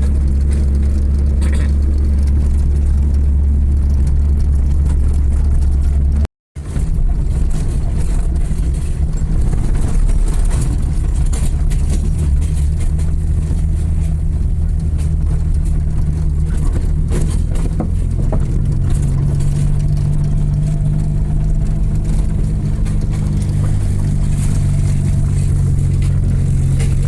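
A road vehicle's engine drones steadily while driving, heard from on board with road noise. The sound cuts out completely for a moment about six seconds in. Later the engine note shifts higher as the speed or gear changes.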